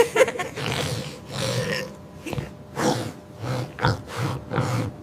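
Cartoon pig characters snorting, a string of about eight short snorts in quick succession.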